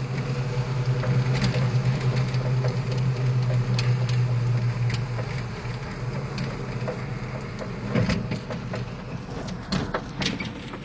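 Steady low vehicle drone heard from inside the steering cab of a heavy-haul jinker trailer on a wet road, easing off about halfway through, with scattered light ticks and rattles.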